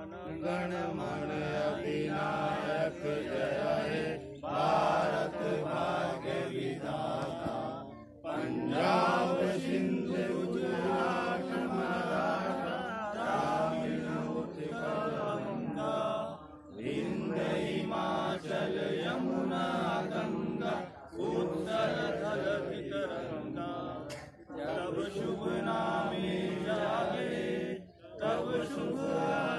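A group of men singing together in unison, a slow song delivered in long phrases broken by short pauses every few seconds.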